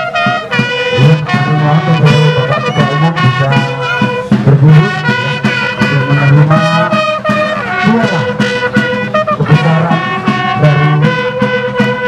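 Instrumental music led by brass, with a steady beat and a low bass part.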